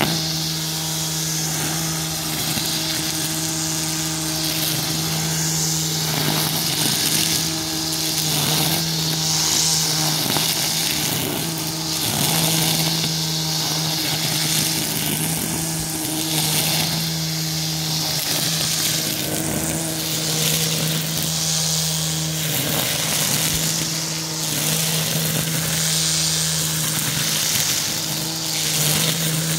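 Husqvarna 535 iFR battery brushcutter's electric motor running at a steady speed with a constant whine, its trimmer line cutting tall grass with a hiss that swells every few seconds as it sweeps through.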